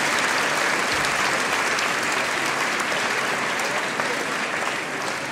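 Large audience applauding, a dense steady clapping that slowly dies down toward the end.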